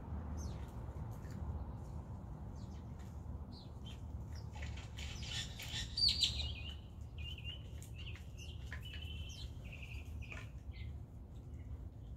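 Birds chirping: a scatter of short calls, busiest and loudest about six seconds in, followed by a few short held notes.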